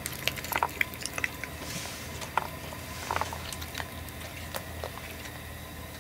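A tabby-and-white cat biting and chewing fresh cat grass, a run of crunchy snips and chews. They come thick in the first second or so, then a few scattered bites follow.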